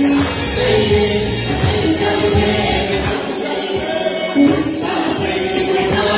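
A congregation and choir singing a worship song together, led by a singer on a microphone, with hand clapping to the beat.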